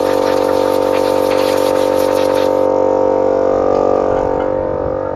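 Ridgid circular saw running with a steady, droning whine while cutting wood. The hiss of the cut stops abruptly about two and a half seconds in, and the saw runs on, getting slightly quieter near the end.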